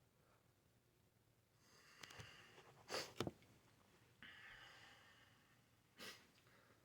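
A person's hitching breaths as a sneeze builds, broken by two sharp stifled bursts through the nose about three seconds in. A breathy exhale follows, then another short burst near the end.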